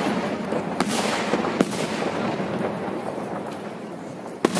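Aerial firework shells bursting overhead: sharp bangs about a second in, again about half a second later and just before the end, with many fainter pops and crackles between them.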